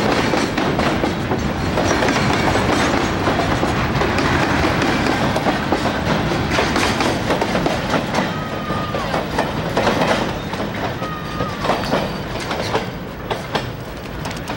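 Container freight train's cars rolling past, wheels clacking over the rail joints with two brief high wheel squeals. The sound drops off near the end as the last car goes by.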